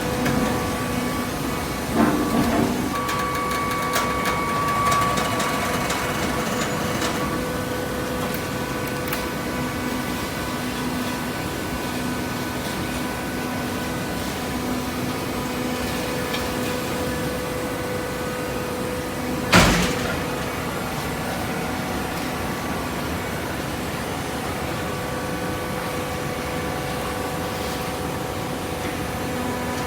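Industrial hydraulic waste-paper baler running: a steady hum from its hydraulic power unit, with a few knocks about two seconds in and one sharp, loud bang about two-thirds of the way through.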